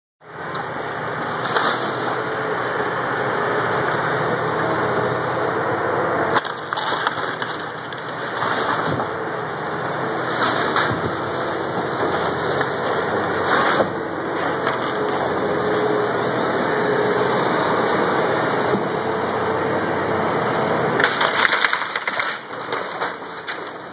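Caterpillar excavator's diesel engine running steadily as its bucket tears into a wooden house, with repeated cracking, crunching and splintering of timber and siding. The crashes come every few seconds and bunch together near the end.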